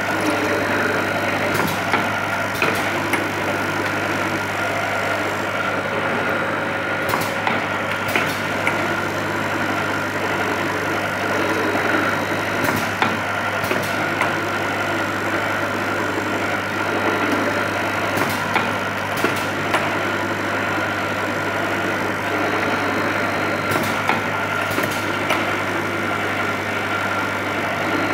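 Automatic tapping machine with indexing table and vibrating linear feeder running: a steady low hum and buzz, with sharp clacks in pairs about every five to six seconds as the machine cycles.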